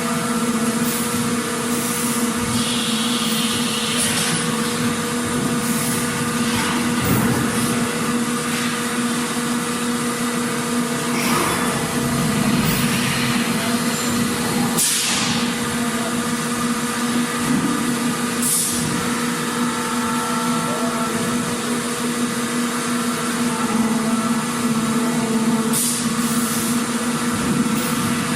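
Factory machinery ambience: a steady machine hum under general mechanical noise, with short hisses every few seconds.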